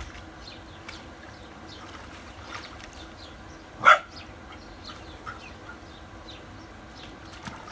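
A puppy gives one short, sharp bark about four seconds in.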